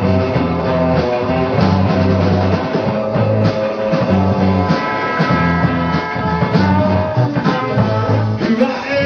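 Rock band playing live: guitar lines over a bass guitar and a drum kit.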